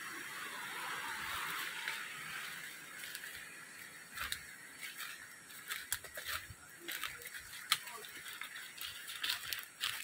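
Footsteps crunching through dry leaf litter and twigs on a forest trail, with irregular sharp crackles and snaps from about three seconds in. A steady hiss at the start fades away over the first couple of seconds.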